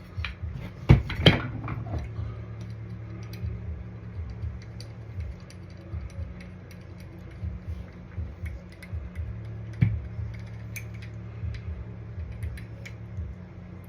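Ratchet wrench clicking as the bolts holding a Comet 780 clutch's spring and roller assembly are backed out, with scattered light metal ticks and sharp metal clanks about a second in and again near ten seconds.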